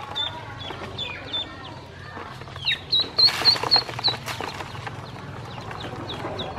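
Domestic ducklings peeping: short, high calls that drop in pitch, coming thickest about three to four seconds in. Along with them, a brief scrabbling of feet and wings in a plastic basin.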